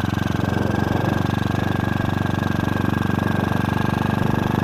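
Honda Supra motorcycle engine fitted to a BMX bicycle, running steadily under way with a fast, even pulse of firing strokes.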